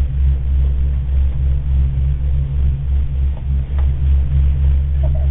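Steady low rumble pulsing a couple of times a second, the sound of riding inside a moving vehicle's cabin.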